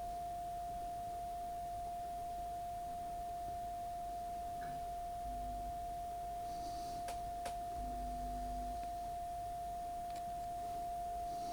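A steady single-pitch calibration test tone, held without any change in pitch or level, used to set playback level on an Akai GX-77 reel-to-reel deck. Two faint clicks come about seven seconds in.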